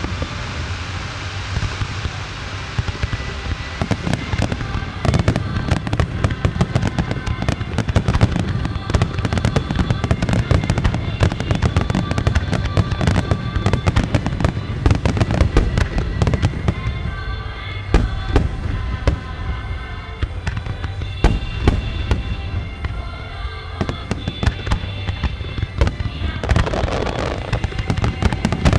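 Japanese star mine fireworks barrage: dense, rapid shell bursts and crackling one after another, with music playing in time with the launches.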